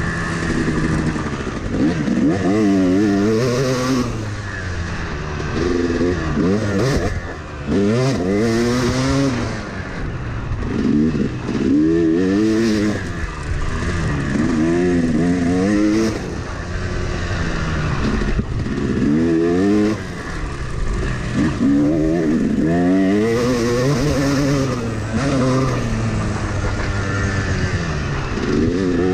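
Yamaha YZ dirt bike engine under hard riding, revving up and dropping back about a dozen times as the rider accelerates and shifts.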